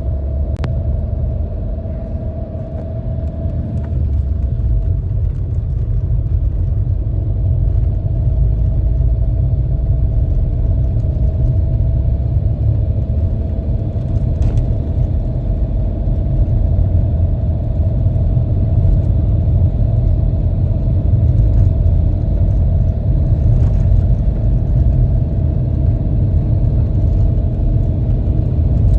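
A motor vehicle running steadily: a loud low rumble with a constant engine hum above it.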